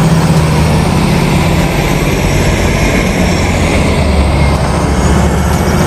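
Heavy diesel machinery running steadily with a deep, even rumble: the heavy-haulage truck and the Liebherr 974 crawler excavator carried on its low-loader trailer.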